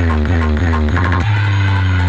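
Loud electronic dance music played through a DJ sound-system truck's speaker stack and horn loudspeakers. A rapid run of falling bass swoops gives way, just over a second in, to a long held bass note.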